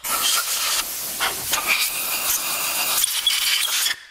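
Compressed-air blow gun, regulated down to about 30 psi, blowing grinding dust and debris out of a ported aluminium cylinder head. It gives a long hissing blast that cuts off just before the end.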